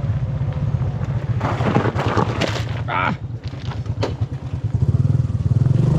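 Small 125cc motorbike's engine running steadily as it rides over loose gravel. Louder crunching and rattling from the gravel under the tyres comes in bursts between about one and a half and three seconds in.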